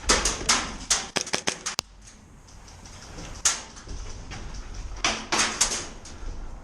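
Airsoft guns firing in a skirmish: a quick, uneven run of sharp clicks and snaps in the first two seconds, a single one midway, and a few more near the end.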